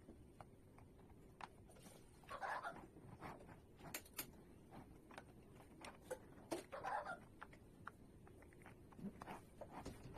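Faint clicks and short rustles of plastic Lego bricks being handled and snapped together, with two brief scrabbling bursts about two and a half seconds in and near seven seconds.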